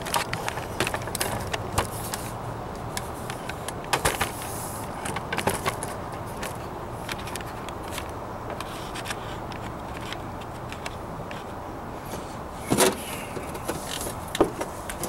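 Steel patch piece being handled and set against a truck's rusty sheet-metal floor pan: scattered light metallic clicks, taps and scrapes, with two louder knocks near the end, over a steady low hum.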